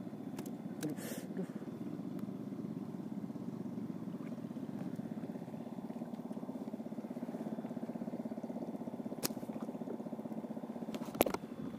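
A small boat engine running steadily with a fast, even pulse. A few sharp clicks come near the end.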